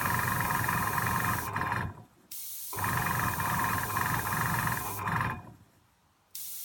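Foxhunter AS186 airbrush compressor running in spells of about three seconds with a steady hum and whine. It cuts out twice, and each time a short hiss comes before it starts up again.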